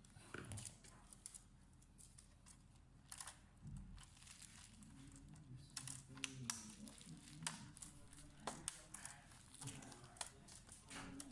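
Faint, scattered clicks and crinkling, irregular and without any rhythm, with a faint low murmur underneath.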